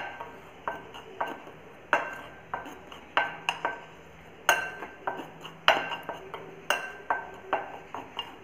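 Metal spoon stirring a dry flour mix in a glass bowl, tapping the glass in a dozen or so sharp, irregular clinks that each ring briefly.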